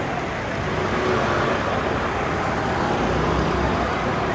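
Steady traffic noise from a car and a motorbike moving slowly past: engines and tyres.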